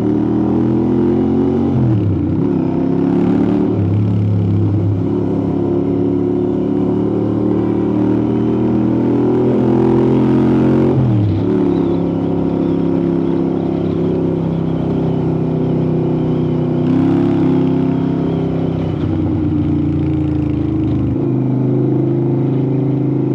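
Royal Enfield motorcycle engine and exhaust running loud while riding. The pitch climbs under acceleration and drops sharply at gear changes, about two seconds in and again about eleven seconds in.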